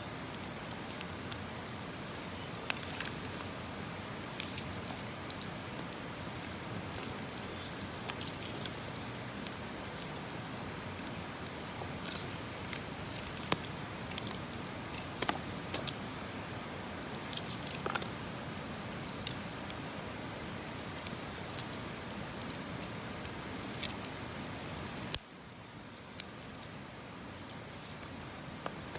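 Campfire crackling: irregular sharp pops and clicks over a steady hiss. The hiss drops off suddenly near the end.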